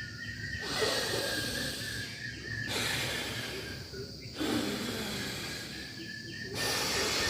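Alternate-nostril breathing (nadi shodhana pranayama): four long, forceful breaths through one nostril at a time, in through the left and out through the right, then in through the right and out through the left, each a hissing rush of air through the nose.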